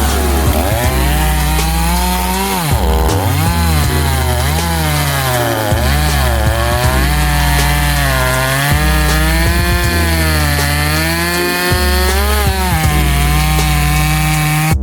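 Gas chainsaw cutting through wood, its engine pitch dipping and rising again and again as the chain bogs into the cut and frees up.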